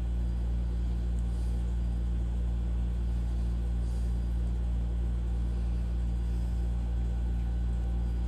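Steady low machine hum with no distinct events.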